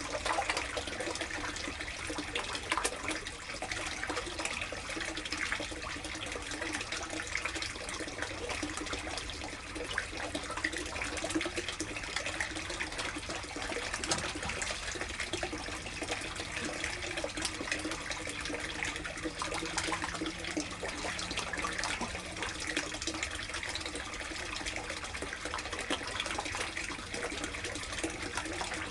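Water in a koi tub splashing and trickling steadily, with many small splashes over a constant run of water.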